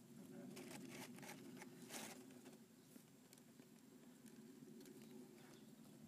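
Faint crackling and rustling of crumpled newspaper catching fire under softwood kindling. There are a few soft crackles in the first two seconds over a low steady hum.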